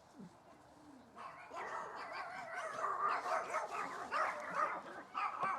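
Several dogs barking and yipping in overlapping calls, starting about a second in and continuing.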